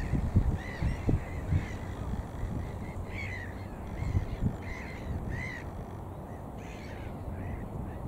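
Gulls calling: a string of short, repeated nasal notes, a few a second, with low rumbling on the microphone that is loudest in the first two seconds.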